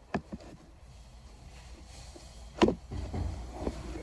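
Light clicks, then one sharp knock about two and a half seconds in, followed by a low rumble: parts being handled while working on a car's steering column.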